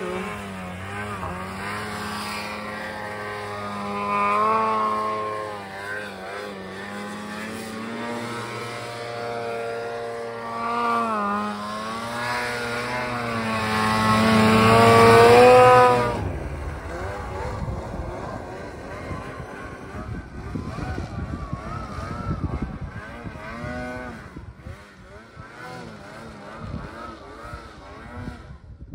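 Snowmobile engine revving up and down as the sled carves through deep powder, its pitch rising and falling with each turn and loudest about halfway through. After that the sound drops to a lower, rougher and quieter running.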